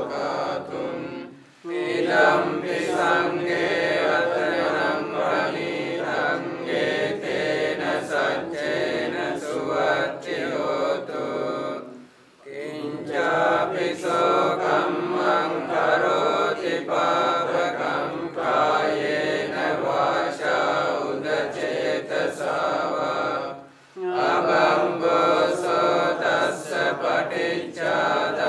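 A group of Theravada Buddhist monks chanting Pali paritta verses together in a steady recitation. The voices break briefly for breath three times, roughly every eleven seconds.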